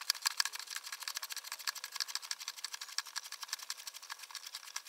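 Cast-iron bench face vise (York HV516) being run in by hand, its steel screw and guide rods giving a rapid, even metallic clatter of many small clicks a second as the jaw closes.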